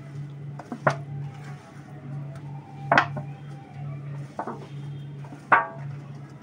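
Metal mixing bowl clinking against the rim of a frying pan three times as food is tipped out of it; the last clink is the loudest and rings briefly.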